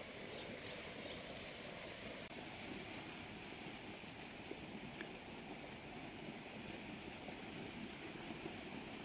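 Fast-flowing water rushing steadily down a narrow channel.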